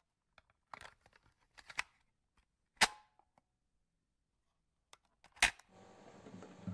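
A handful of sharp mechanical clicks, small ones near the start and two louder ones about three and five and a half seconds in, the first with a short ring. A faint steady hum comes in near the end.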